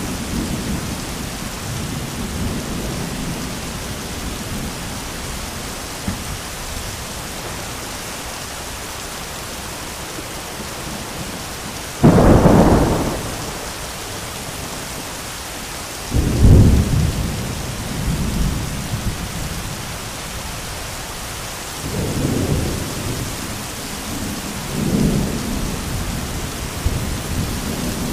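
Heavy rain falling steadily through a thunderstorm. Low rolling thunder runs under the rain, a sudden crack of thunder about halfway through is the loudest sound, and several more rumbles of thunder follow in the second half.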